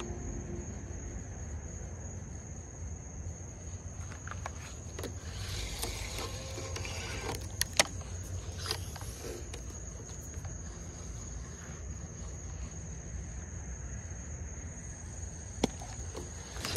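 Night insects, crickets or katydids, calling in one steady high-pitched drone over a low rumble, with a few sharp clicks around the middle.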